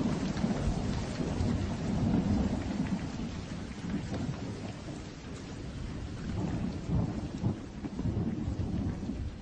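Rain falling with low thunder rumbles, dying down near the end.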